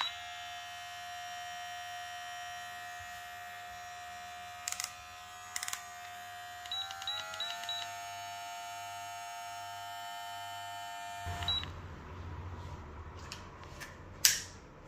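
VGR V682 electric hair clipper running with a steady high whine. About seven seconds in, it speeds up in a few steps, each with a short high beep. Near the end the whine stops and a rougher, noisier buzz follows, with a few sharp clicks.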